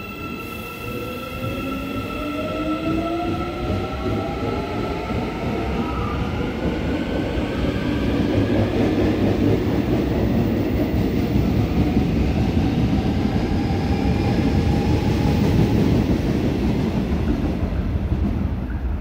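Subway electric train pulling out of the platform, its IGBT inverter whining in several tones that rise in pitch as it accelerates over the first few seconds. A broad rail rumble then swells and eases slightly near the end.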